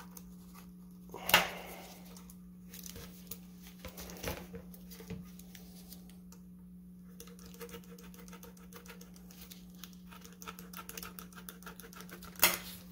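A knife cutting through a rubber radiator hose by hand to trim off its extra end: a run of small crackling ticks and scrapes. A few sharper knocks come from handling, the loudest about a second in and near the end. A steady low hum runs underneath.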